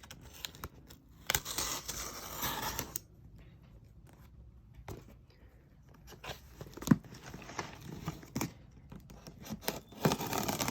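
A shipping package being torn open: bursts of tearing as its seal comes apart, with packaging rustling and a few sharp knocks in between, and more tearing near the end.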